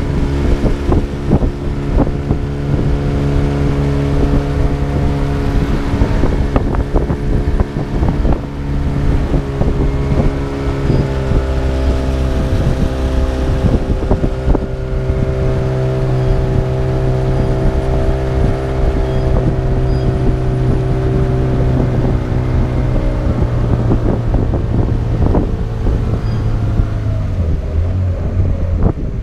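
Small boat's engine running steadily under way, with a few brief knocks. Its pitch rises slightly about a third of the way in and drops near the end as it slows.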